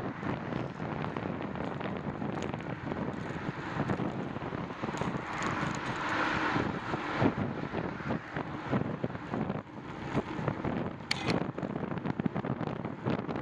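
Wind buffeting and road rumble on the microphone of a camera mounted on a moving bicycle, a dense crackling with a louder swell about six seconds in and a sharp click about eleven seconds in.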